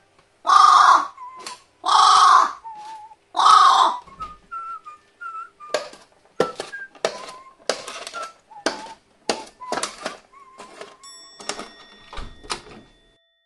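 Carrion crow giving three loud, harsh caws, about a second and a half apart. Then its beak taps and clicks again and again against a plastic bowl for several seconds.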